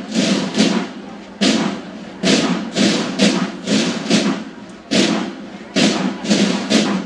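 Banda de guerra field drums beaten with sticks in a march cadence: heavy strokes about three a second, with a short break about a second in.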